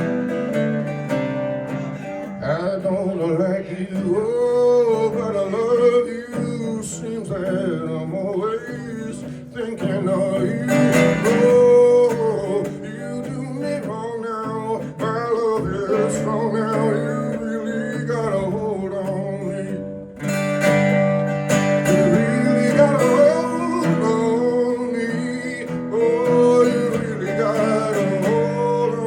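Acoustic band music: a strummed acoustic guitar under a sliding, wavering melody line. The song winds down and fades right at the end.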